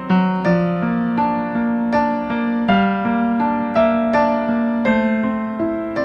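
Gentle piano music: single notes played in a steady flowing line, each note ringing on over the one before.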